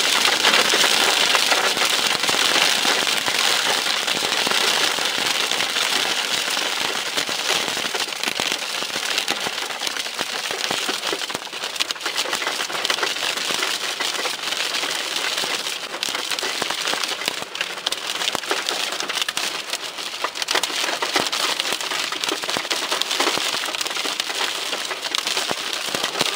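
Hail pelting the roof and windshield of a car, heard from inside the cabin: a dense, steady clatter of small impacts.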